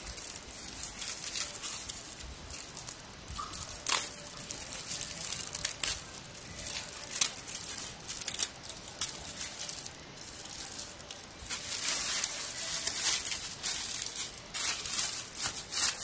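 Clear plastic wrap crinkling and tearing as it is pulled off a rubber football: a run of crackles, busiest and loudest in the last few seconds.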